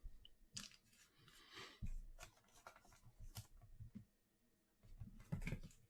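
Faint handling of trading cards: light taps, clicks and short rustles of cards being shuffled and set down.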